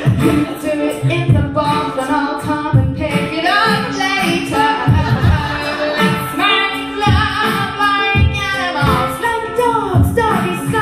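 A woman singing a comic song live over a man beatboxing a steady beat into a microphone, about two low kick sounds a second under her voice.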